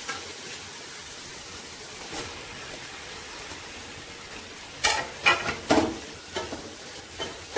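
Sliced onions and ginger-garlic paste frying in oil in a pot, a steady sizzle; about five seconds in, chopped tomatoes are added and stirred in with a spatula, giving a few louder scrapes and sizzles.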